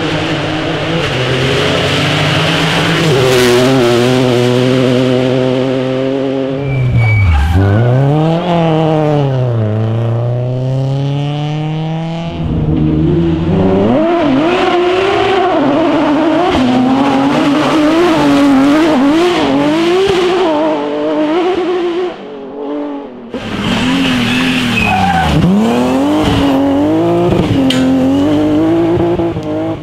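Three rally cars taken through a cobbled corner in turn, a Toyota GR Yaris, then a Porsche 911 from about 12 seconds in, then a BMW E36 from about 23 seconds in. Each engine revs up and drops back through gear changes, with tyre squeal.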